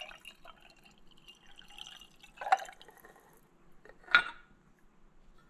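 Filtered water poured from a glass measuring cup into a glass mason jar: a splashing, trickling pour that thins to drips. Two brief, sharper sounds stand out about two and a half and four seconds in.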